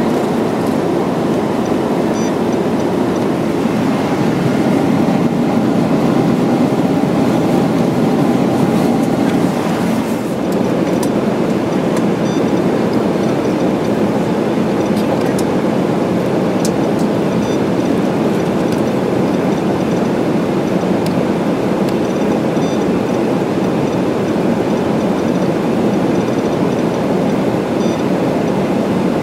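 Jet airliner cabin noise: a steady, loud rumble of engines and airflow heard from inside the passenger cabin.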